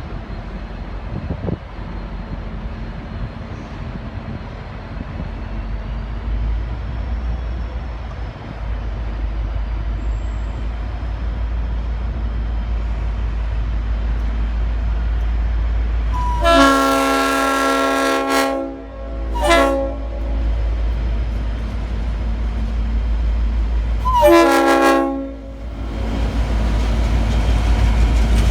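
Diesel-electric locomotive running and getting louder as it pulls away, while its Leslie RS5T five-chime air horn sounds three blasts: long, short, then long. Each blast slides up in pitch at the start.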